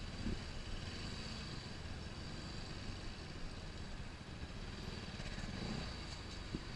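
Motorcycle engine running at low speed while being ridden, heard from the rider's seat as a steady low rumble with road noise.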